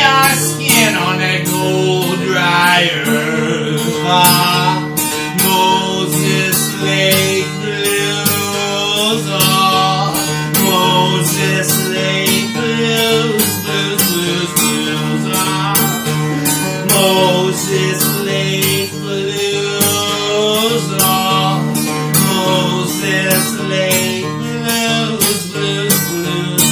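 Steel-string acoustic guitar strummed in a steady rhythm, with a man singing over it.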